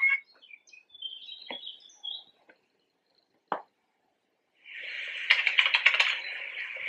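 Birds chirping in short high calls, with a couple of sharp clicks. After a silent gap, a denser, noisier stretch of chirping and crackle builds up about two-thirds of the way in.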